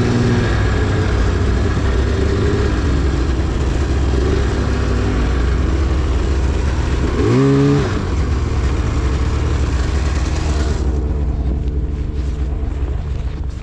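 2010 Arctic Cat CFR 1000's two-stroke engine running under way, with one quick rev up and back down about seven seconds in; the engine eases off near the end.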